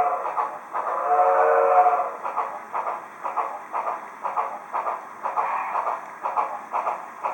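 Digital steam sound from the DCC decoder of an HO-scale Southern Pacific AC-12 cab-forward model, played through its small onboard speaker: the tail of one chime-whistle blast, a second blast about a second in, then slow, steady exhaust chuffing.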